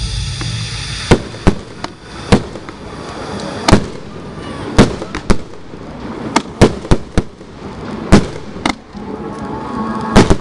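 Fireworks display: aerial shells launching and bursting, about a dozen sharp bangs at irregular intervals, some in quick pairs.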